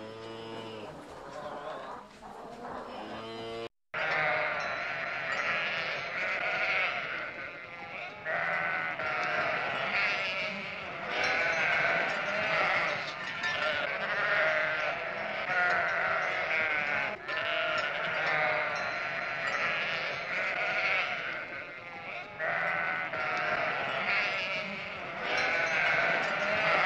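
A flock of sheep bleating continuously, many calls overlapping. A different, shorter animal call comes in the first few seconds before a sudden break.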